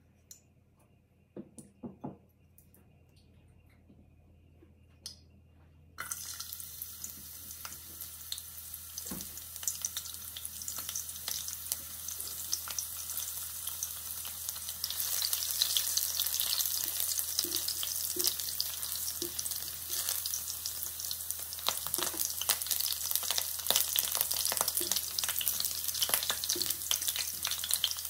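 Chopped garlic frying in hot oil in a nonstick wok, the sizzle starting suddenly about six seconds in and growing louder about halfway through, with crackles and a silicone spatula stirring. Before the sizzle there are a few light knocks.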